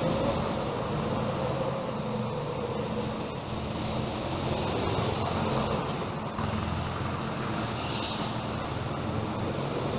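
A steady low mechanical hum and rumble with a few held low tones, like a running vehicle.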